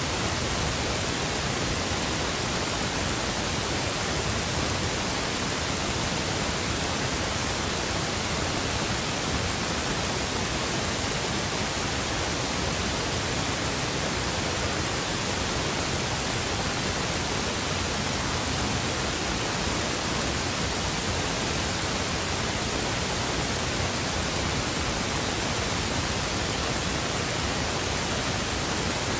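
Steady, even hiss like static, unchanging throughout, with no other sound standing out of it.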